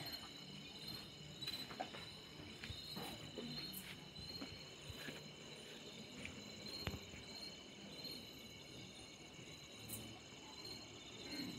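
Insects chirring steadily at a high pitch, with scattered faint clicks.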